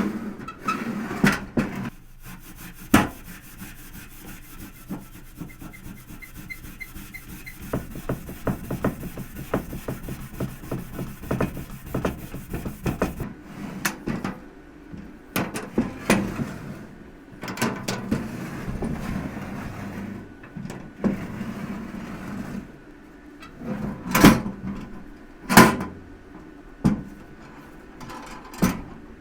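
Hands working on a dented old metal toolbox: rubbing and scraping with many small clicks, and a few sharp knocks near the end.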